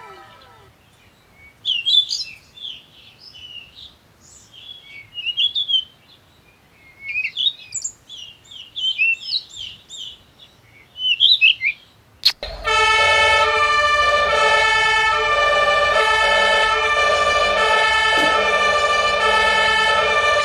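Small birds chirping and twittering in short, scattered calls. About twelve seconds in, after a sharp click, background music with sustained chords and a steady beat starts.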